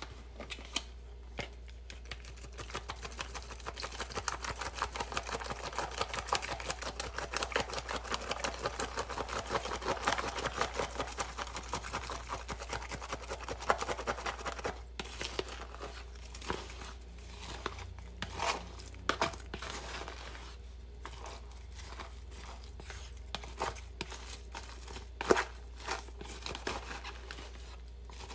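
Wooden chopsticks stirring shredded cabbage, tempura bits and raw egg into okonomiyaki batter in a disposable cup: quick, crunchy scraping and clicking at several strokes a second, slowing to scattered strokes about halfway through.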